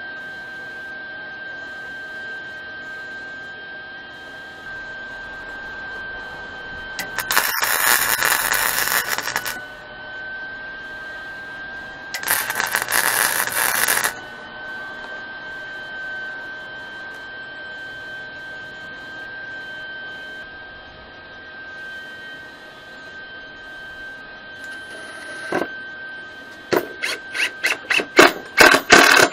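MIG welder arc crackling in two bursts of about two seconds each as steel chain links are tack-welded, over a steady high-pitched whine. Near the end a cordless drill runs in a quick series of short trigger bursts.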